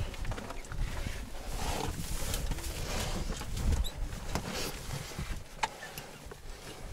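Hiking boots stepping and scuffing on a rocky mountain trail: scattered sharp clicks and scrapes, over a low uneven rumble of wind on the camera's microphone.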